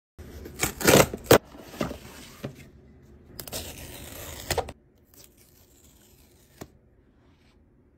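Cardboard and paper tearing. The shipping box is ripped open in several quick, sharp pulls, then the paper seal strip is peeled from the iPhone 14 Pro box in one longer tear. One light click comes near the end.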